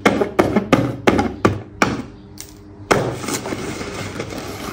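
A stick jabbing at a paper-covered board: a quick run of sharp knocks, three or four a second, that stops about two seconds in. About a second later comes one harder hit, then the rustle of the paper tearing open.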